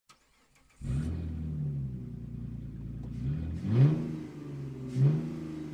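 Mazda Eunos Roadster car engine running, coming in suddenly about a second in, then blipped twice in quick rising revs, near the four- and five-second marks, before settling back.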